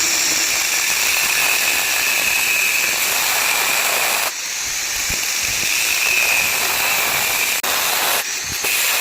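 Electric arc welding: a loud, steady sizzling hiss as the arc burns on the steel. It breaks off briefly about four seconds in and again in a few short stops near the end as the arc is broken and struck again.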